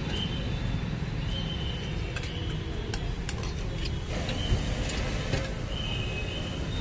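Steady street traffic rumble, with short high-pitched beeps recurring every second or so and a few light clicks.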